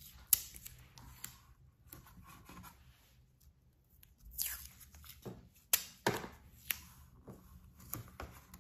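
Paper masking tape being torn and pressed onto a drawing board, with scattered sharp taps and clicks of hands and tape against the board.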